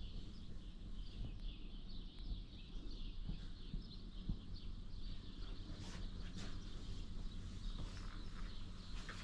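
Birds chirping continuously in a dense chorus of short, high calls, over a steady low rumble.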